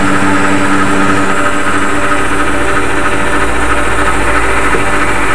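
Honda Transalp V-twin motorcycle engine running at a steady speed, with an even rush of noise over it.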